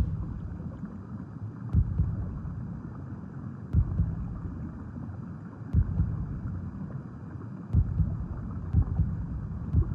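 Muffled underwater sound with a slow, heartbeat-like low thud about every two seconds, some of the thuds doubled.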